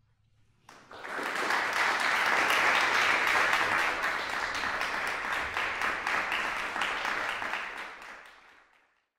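Audience applauding, starting a moment after a silence and fading out near the end.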